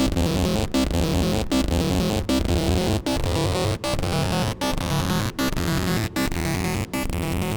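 Distorted saw-wave synth lead from Serum 2 playing a sequenced pattern of short stepping notes, cut by brief gaps about every three-quarters of a second, with a high-pass filter placed before the distortion.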